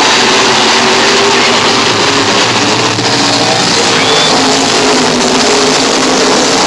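A field of modified race cars running together around the oval, several engines overlapping in loud, steady engine noise.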